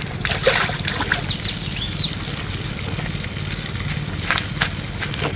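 Bare feet wading and splashing through shallow muddy water, a few separate splashes, over a steady low hum; a bird chirps a few times.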